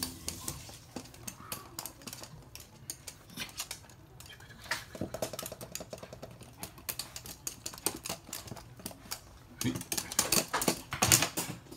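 Toy poodles' claws clicking and tapping on a hard floor as they trot and scamper about. The clicks come in scattered runs and grow into a quick, dense patter near the end.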